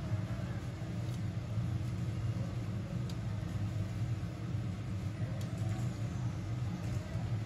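A steady low rumble over faint frying of hotteok in oil on a flat griddle, with a few light clicks of metal tongs.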